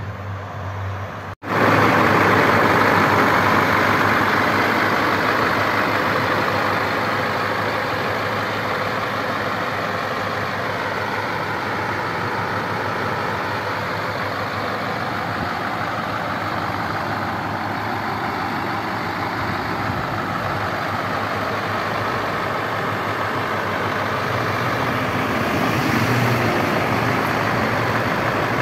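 Scania truck's diesel engine running steadily at idle, a little louder near the end.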